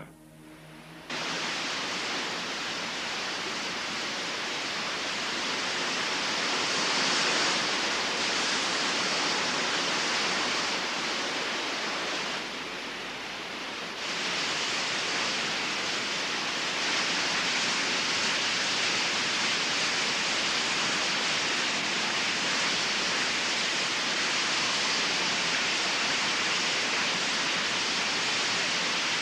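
Water pouring steadily over a weir. It starts about a second in and turns briefly quieter around twelve seconds in.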